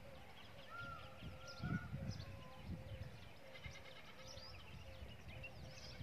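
Small birds twittering throughout, with many quick, high, falling chirps over a faint repeated lower note. A short drawn-out call about a second in, and a dull low thump a little under two seconds in.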